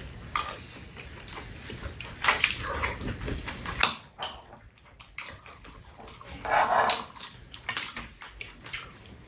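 Close-up eating sounds: metal spoons clicking and scraping in a bowl of fried rice, with chewing and mouth noises in short bursts.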